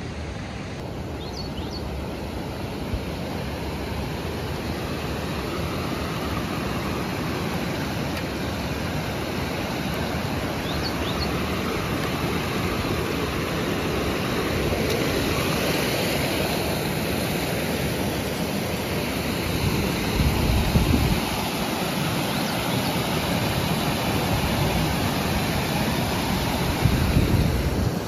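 Water rushing steadily over a small man-made dam, a dense even roar that slowly grows louder. A couple of low rumbles come in about twenty seconds in and again near the end.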